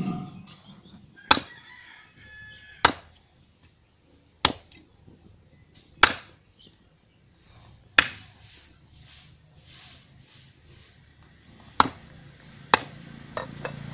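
Long kitchen knife chopping raw chicken into pieces on a wooden block: seven sharp chops of the blade going through into the wood, about a second and a half apart, with a longer gap before the last two.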